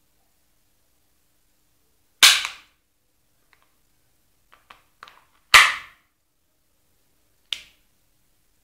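Beretta M9 gas blowback airsoft pistol firing two shots about three seconds apart, each a sharp crack with a short ring-out. Light clicks of the gun being handled come between the shots, and a single sharper click follows near the end.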